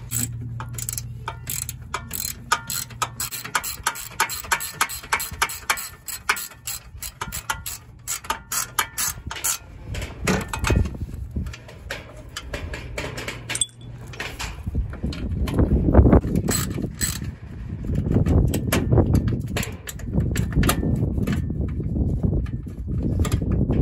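Hand ratchet wrench clicking in quick runs of strokes as a bolt in a utility vehicle's frame is turned, for the first ten seconds or so. After that a louder low rubbing, rumbling noise takes over, swelling and fading every couple of seconds.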